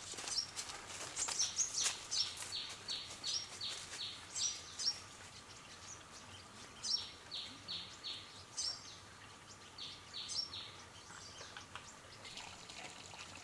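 A songbird singing runs of short, high notes that each drop in pitch, repeated in phrases a few seconds apart, over a faint steady tone.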